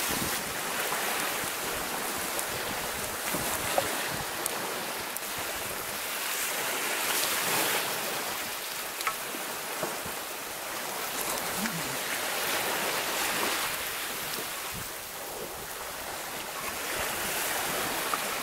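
Sea waves washing on a shore, the noise swelling and fading every few seconds, with a few light clicks.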